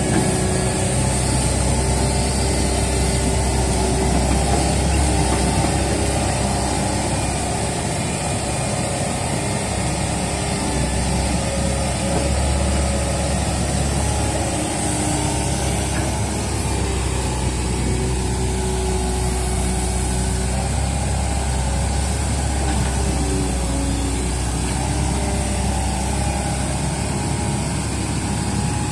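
Hitachi hydraulic excavator's diesel engine running steadily while it works, loading earth into a dump truck.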